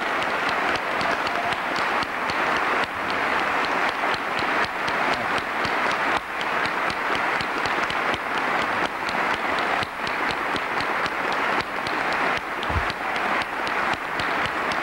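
A roomful of people applauding steadily: dense, sustained clapping with no let-up. A single dull low bump near the end.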